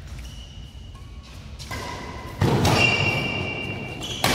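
Badminton doubles rally on a synthetic court: short high squeaks from players' shoes, a heavy thud about two and a half seconds in, and a sharp hit just before the end.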